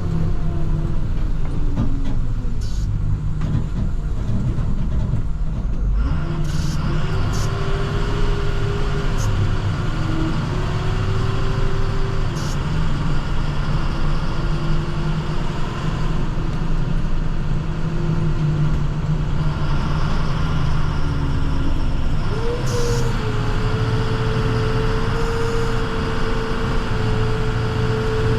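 International TerraStar plow truck running as it drives. The note rises and falls with speed, then climbs and holds steady near the end, with a few sharp ticks.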